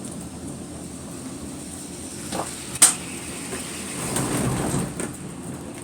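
Skyrail cableway gondola cabin in motion: a steady low hum with knocks, one sharp loud clank a little before the middle, then a short rumbling rattle.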